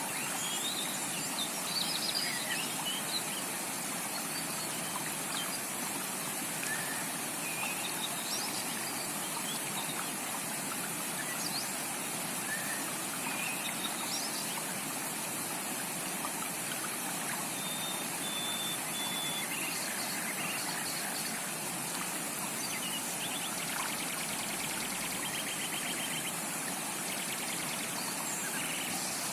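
Tropical rainforest creek running in a steady rush, with scattered short bird chirps over it.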